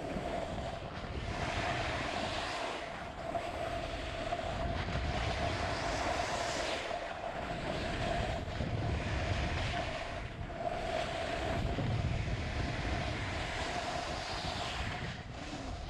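Wind rushing over the microphone of a camera sliding downhill on a ski slope, a low buffeting rumble under the hiss of snow passing beneath, swelling and easing as speed and turns change. A steady mid-pitched hum runs underneath.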